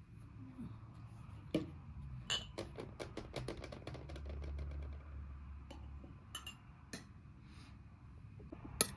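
Kitchen utensils clinking against dishes. One sharp clink comes first, then a quick run of about eight clinks a second lasting over a second, then a few scattered clinks, with the loudest near the end.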